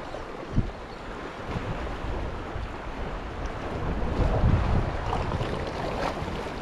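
Wind buffeting the camera microphone in gusts over the wash of sea water against shoreline rocks, the low rumble growing stronger in the second half. A single sharp knock sounds about half a second in.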